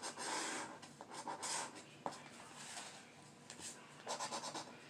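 Scratch-off lottery ticket being scratched: short rasping scrapes in several bursts, with a quick run of strokes near the end.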